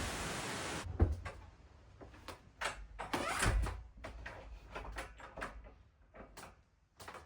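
A steady hiss cuts off about a second in. It is followed by a loud thump and then a scattered run of knocks, clicks and bumps, with a longer rustling scrape near the middle: objects being handled and moved about in a small wooden room.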